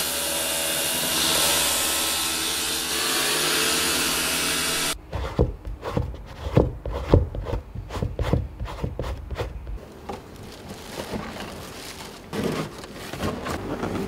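A spinning grinding wheel rasps steadily against a climbing shoe's rubber as the shoe is pressed to it, then cuts off suddenly about five seconds in. A run of irregular sharp knocks and taps follows.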